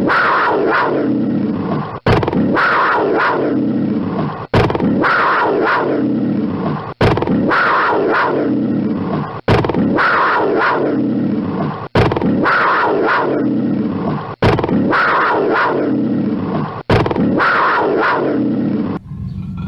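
A black panther's rough roaring growl, each call falling in pitch. The same roar repeats back to back as a looped sample, cut sharply and restarting about every two and a half seconds, about eight times.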